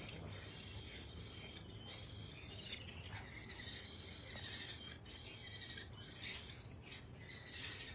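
Pet parrot chirping and tweeting repeatedly in short, high calls.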